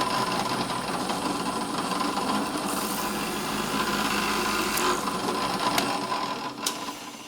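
Power drill spinning a plug-cutting bit used to cut small spruce cleats, a steady motor whine that winds down near the end.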